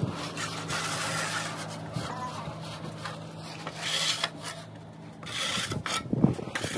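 Metal blade of a long-handled digging shovel scraping snow off a concrete walkway in several rasping strokes.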